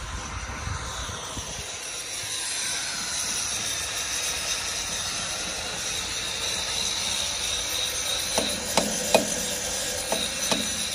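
A steady high-pitched hiss, with several sharp metallic knocks in the last few seconds, like a tool striking steel.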